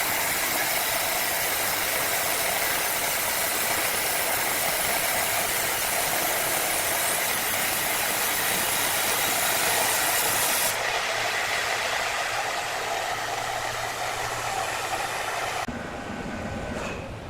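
Powered wood saw running and cutting timber: a loud, steady machine noise with a steady whine. The high hiss drops away suddenly about eleven seconds in, and the sound quietens further near the end.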